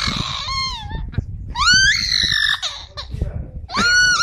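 Amazon parrot imitating a crying baby: a series of wailing cries, some rising and some falling in pitch, with a long high wail near the end.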